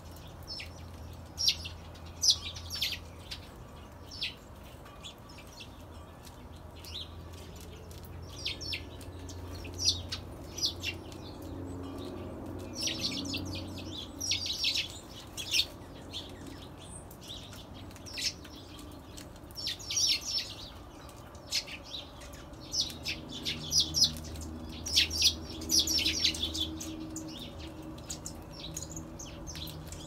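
Small birds chirping, many short high chirps coming in irregular clusters, over a faint steady low hum.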